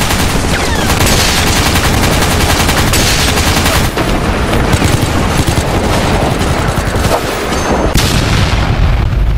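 Dense, unbroken battle gunfire sound effects: rapid machine-gun bursts and rifle shots overlapping, with a low rumble underneath.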